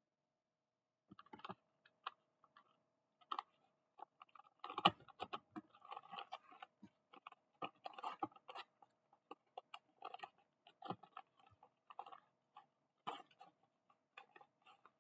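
Plastic blind-bag packaging crinkling and being handled: irregular crackles, rustles and small taps, busiest around the middle, over a faint steady hum.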